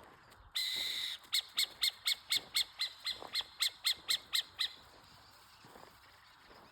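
Burrowing owl calling: a rough, rasping call of about half a second, then a rapid run of about fourteen short sharp notes, roughly four a second, that stops a little past the middle.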